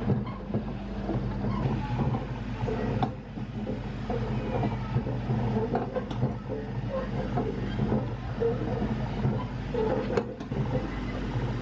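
A motor running steadily with a low hum, with scattered clicks and knocks over it.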